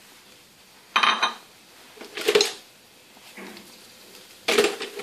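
A utensil clinking and scraping against a cooking pot as dried guajillo chile strips are stirred in oil, in four short clatters about a second apart.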